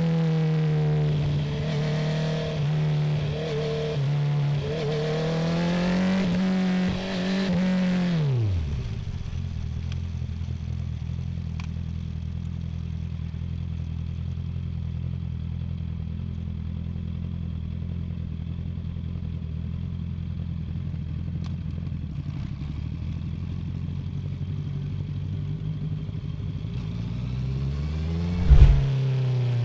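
Honda CB650R inline-four engine through an Akrapovic full titanium exhaust, running at steady high revs with small dips. About eight seconds in the revs fall sharply and it idles steadily for most of the rest. Near the end the revs rise in a brief blip with a short loud burst.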